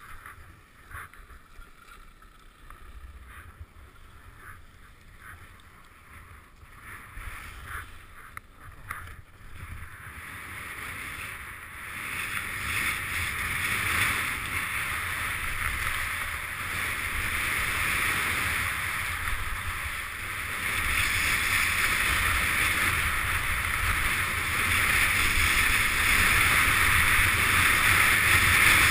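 Skis sliding and scraping over hard-packed snow with wind rushing over the microphone as a skier descends. The first part is quieter, with a few light clicks and scrapes. From about ten seconds in, the hiss and wind rumble build steadily and grow louder as speed picks up.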